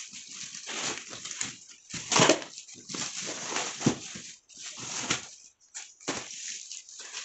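Corrugated cardboard packing being torn away by hand and plastic wrap crinkling as a parcel is unwrapped: an uneven string of rustles and tears, loudest about two seconds in.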